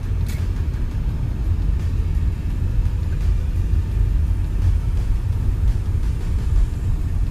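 Loud, steady low rumble of road and wind noise inside a moving car's cabin.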